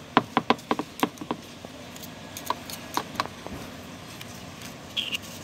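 Sharp clicks and light taps from scissors and a plastic glue bottle working against a scooter's plastic floorboard and rubber mat as contact cement is applied. There is a quick run of clicks in the first second or so, then a few scattered ones.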